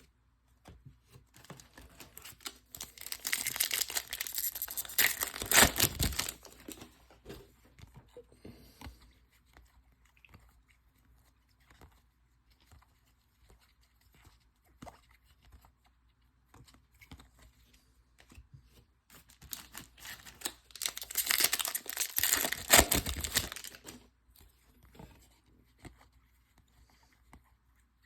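2014 Topps Chrome trading-card pack wrappers being torn open and crinkled. There are two bursts of tearing, one about three seconds in and another about twenty seconds in, with small clicks and rustles of cards being handled in between.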